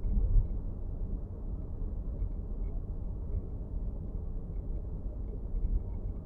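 Steady low road rumble inside the cabin of a moving Nissan X-Trail e-POWER, with faint, irregular small clicks: the rattle of an abnormal noise from the dashboard.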